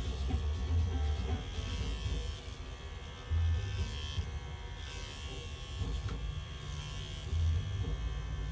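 Electric hair clippers buzzing steadily as they cut a small child's hair.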